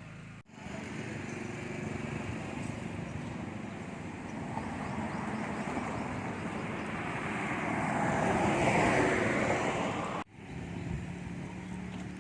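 Road traffic noise from a passing motor vehicle, swelling to its loudest near the end and then cutting off abruptly.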